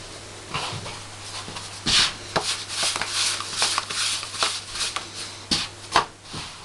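Hands slapping and patting pizza dough on a floured table, a quick run of slaps about three or four a second from about two seconds in, loudest near the start of the run and near the end.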